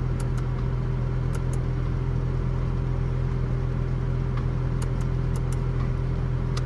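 Honda Fit's 1.3 L L13 i-DSI four-cylinder engine idling steadily, with a steady low hum.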